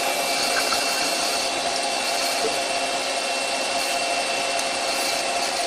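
Doosan CNC lathe running with its spindle turning at about 700 rpm: a steady machine whir with a few constant tones in it.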